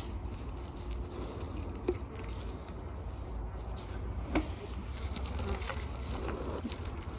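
Faint wet handling sounds of gloved hands pulling a skein of roe out of a gutted salmon's belly, with scattered small ticks and one sharp click about four seconds in, over a steady low rumble.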